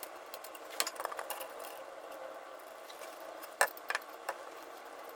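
Scattered sharp metallic clicks and knocks of hand work on a metal bracket under a van's front bumper, over a faint steady hum.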